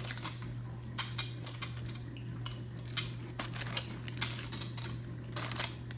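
Chargrilled oyster shells being handled on a foil-lined platter: scattered light clicks of shell against shell and plate, with foil rustling, over a steady low hum.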